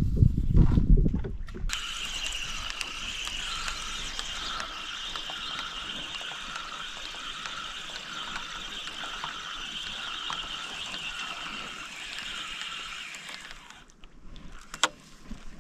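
A loud low rumble for the first second or two, then a baitcasting reel wound steadily for about twelve seconds: an even whirr that pulses about once or twice a second. The whirr stops as the lure reaches the rod tip, and a single sharp click follows.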